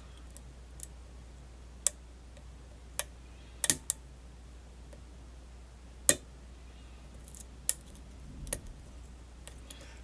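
Metal pick working the pins of a brass pin-tumbler lock cylinder under tension: scattered, irregular sharp clicks and ticks, about ten in all, over a faint low hum.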